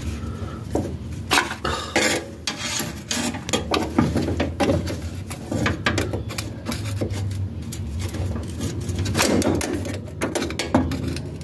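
Irregular metallic clinks, knocks and scrapes of tools and parts being handled under a car, over a low steady hum.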